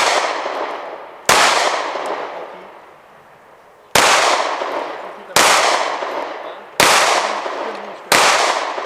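Five pistol shots at a slow, uneven pace, roughly one and a half to two and a half seconds apart, each followed by an echo dying away over a second or more.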